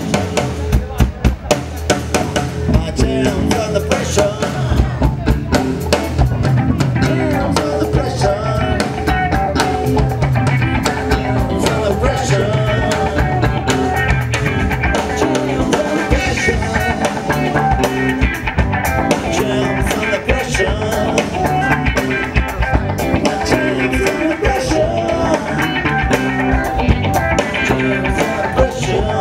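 Live rock band playing loudly: drum kit, electric guitar and electric bass, with a wavering lead melody line over a steady beat.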